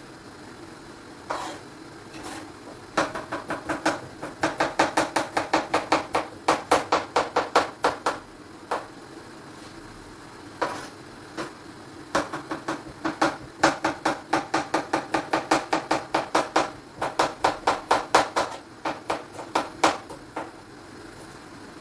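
Kitchen knife chopping vegetables on a cutting board, in quick runs of about four strokes a second, broken by short pauses and a few single knocks, over a steady low hum.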